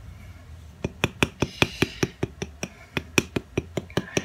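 Wooden paddle slapping a firm, partly dried clay sculpture of a head: a quick, even run of light taps, about five a second, starting about a second in. The paddling evens out lumps and shapes the surface.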